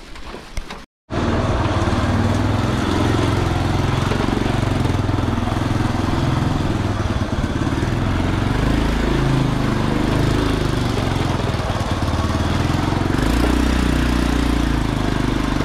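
Small motorbike running as it is ridden, the engine note shifting a little with speed. It starts after a short silent gap about a second in.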